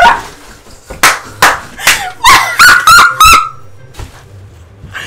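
A woman laughing loudly in about eight short, high-pitched bursts, bunched closer together near the end, and stopping about three and a half seconds in.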